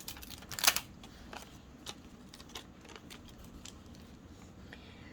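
Paper cutouts being handled on a craft table: a short rustle in the first second, then a few faint taps and crinkles.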